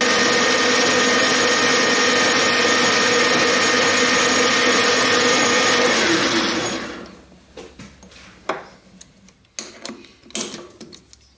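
Metal lathe running with its tool facing a large spinning metal disc, a loud steady whine over a noisy hiss. About six seconds in it is switched off and the whine falls in pitch as the spindle runs down, followed by a few light clicks and knocks.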